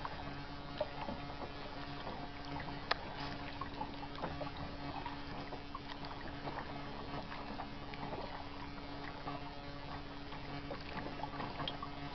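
Kayak paddle dipping into the water and dripping, in light splashes and trickles, with a sharp tick about three seconds in and a steady low hum underneath.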